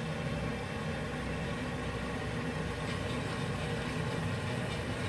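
Toilet cistern refilling after a flush: a steady rush of water running into the tank.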